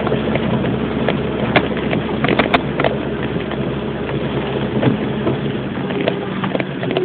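A 4x4's engine running steadily while it drives through flood water, with water noise and scattered sharp knocks. The low engine tone thins out about six seconds in.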